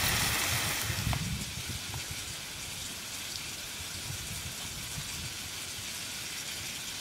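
Camping stove burner hissing and food frying in the pot, loud for about the first second, then dropping to a fainter steady hiss with scattered low rumbles.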